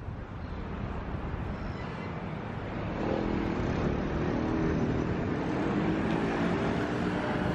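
City street traffic: a steady wash of cars and motorcycles passing, with a vehicle engine hum coming up about three seconds in.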